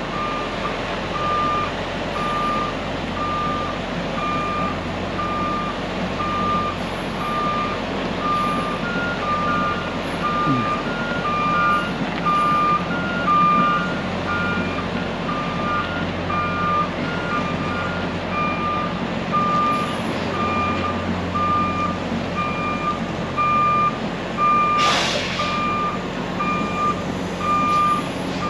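Truck's backup alarm beeping about once a second as the truck reverses, over the low run of its engine. For a while a second, higher-pitched backup alarm beeps alongside it, and a short hiss comes near the end.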